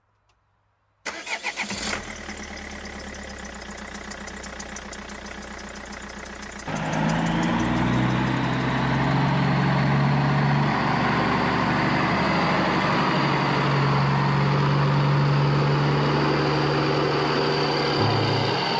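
A car engine cranks and catches, then idles steadily. About a third of the way in it gets louder and holds at a higher, steady pitch.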